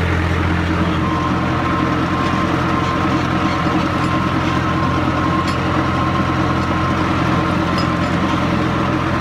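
Tractor diesel engine running steadily under load while pulling a tined cultivator through wet, freshly rained-on soil.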